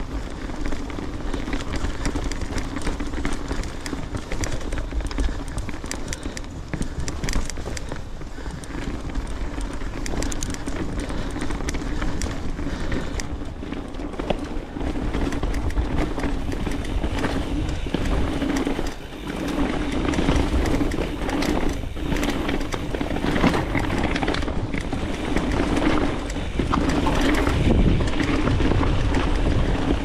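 Specialized Stumpjumper full-suspension mountain bike riding down a dirt trail: tyres rolling and skidding over dirt and rocks, with frequent rattling knocks from the bike and a steady hum under it. Wind rushes over the camera microphone, and the run gets a little louder over the last few seconds.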